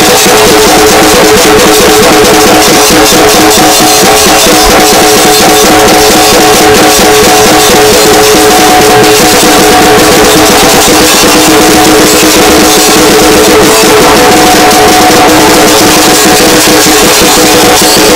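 Instrumental passage of a homemade death metal song: electric guitar chords held over rapid, continuous drumming, loud and steady, with no vocals.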